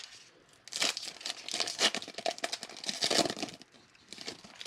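A foil trading-card pack being torn open and its wrapper crinkled by hand: a run of crackling rustles lasting about three seconds, with a few more near the end.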